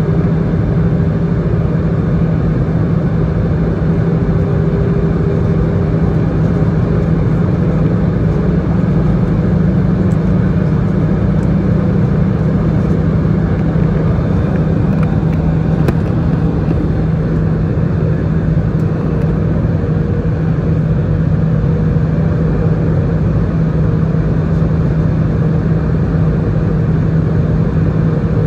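Cabin noise inside an Airbus A319 airliner on descent: a steady rush of engine and airflow noise with a constant low hum. A faint higher tone fades out about six seconds in.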